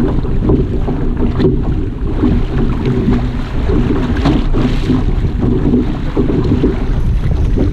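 Wind buffeting the microphone of a camera on an outrigger canoe under way, a heavy steady rumble. Water rushes along the hull and float, with the light splashes of paddle strokes on top.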